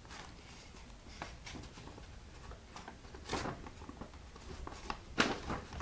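Paper rustling and rubbing as glued wallpaper paper is pressed and smoothed onto a paper-covered box by hand, with two louder scrapes about three and five seconds in.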